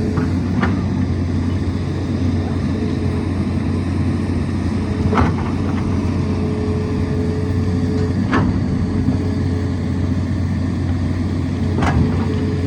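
Tata Hitachi excavator's diesel engine running steadily with a faint hydraulic whine that comes and goes. Four sharp knocks of rock or bucket against rock are heard across the stretch.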